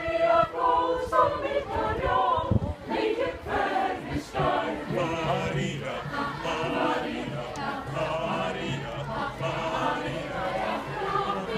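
A group of Icelandic singers singing together as a choir while marching, many voices on one tune, with a few low bumps partway through.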